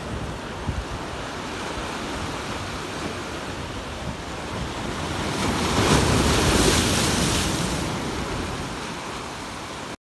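Sea waves washing against the rock armour of a breakwater. About halfway through, a larger wave breaks on the boulders with a swelling rush of spray, then fades away over the last couple of seconds.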